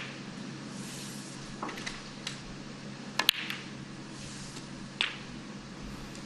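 Snooker cue striking the cue ball and balls clicking together on the table: a sharp double click about three seconds in and another single click about two seconds later, over quiet arena room tone.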